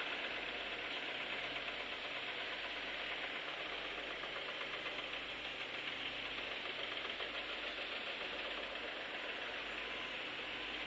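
Construction machinery engine running steadily, with a rapid knocking rattle.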